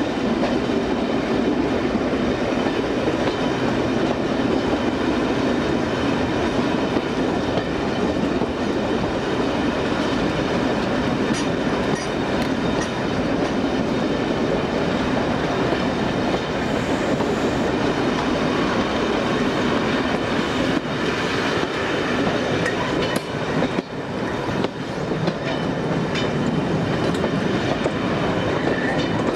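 Class 55 Deltic locomotive's twin Napier Deltic two-stroke diesel engines running under power at the head of the train, heard from an open carriage window, mixed with the steady rumble of the carriages' wheels and an occasional click over rail joints.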